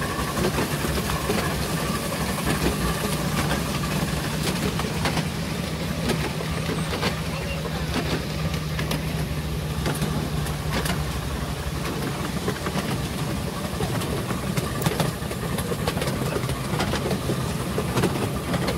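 Train running along a miniature steam railway, heard from a carriage behind the steam locomotive: a steady running noise with scattered irregular clicks from the wheels on the track. A low hum fades out about two-thirds of the way through.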